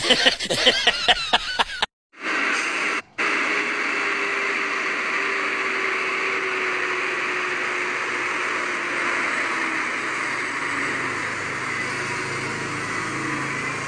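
Loaded Dongfeng dump truck driving slowly past at close range. Its engine gives a faint low, steady note under a loud, even hiss of running noise.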